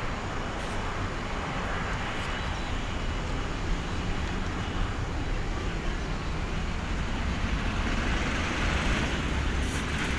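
Jet engines of a departing Airbus A330-200 at climb power, a steady distant rumble and roar as the airliner climbs away.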